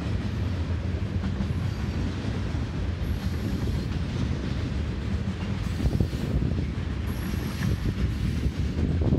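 Freight cars of a fast CSX manifest train, mostly tank cars, rolling past: a steady rumble of steel wheels on rail with clicks over the rail joints. A faint high wheel squeal comes in briefly twice.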